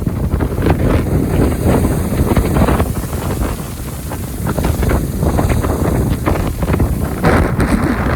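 Strong typhoon wind gusting and buffeting the microphone in a loud, uneven rumble, easing a little for a moment near the middle.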